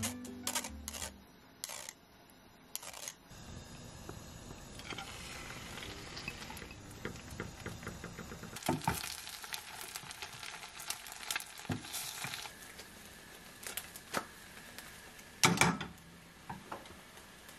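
Thin layer of beaten egg sizzling gently in a nonstick frying pan over a gas flame as an egg sheet cooks. A few sharp knocks from the pan and utensils come through, the loudest near the end.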